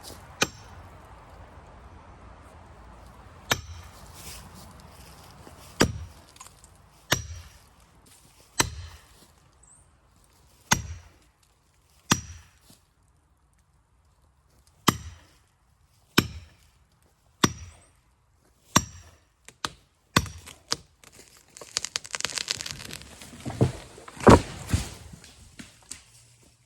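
Single blows of an axe on wood, spaced about a second or two apart, each with a short ringing crack. A quicker run of cracks and knocks comes near the end, with the loudest blow among them.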